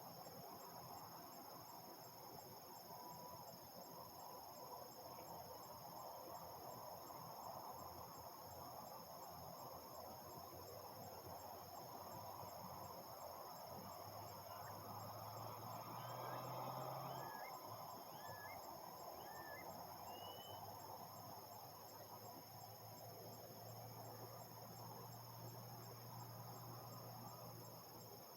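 Faint, steady evening chorus of crickets and other insects trilling. From about halfway through, a low steady hum of distant harvest machinery joins in, and a few short high chirps come in the middle.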